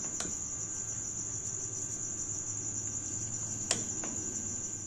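A steady high-pitched trill, like an insect's, runs throughout over a faint low hum. A spatula stirs rice in a metal pot and knocks against the pot twice: lightly just after the start and more sharply about three and a half seconds in.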